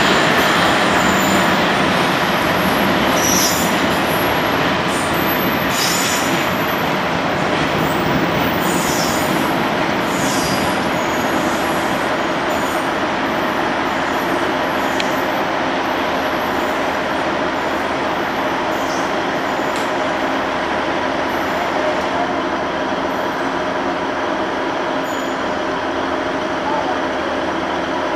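Diesel-hauled engineering train of loaded wagons rolling past on jointed pointwork, a steady rumble and clatter of wagon wheels on the rails with brief faint high wheel squeals in roughly the first ten seconds, slowly fading as the train draws away.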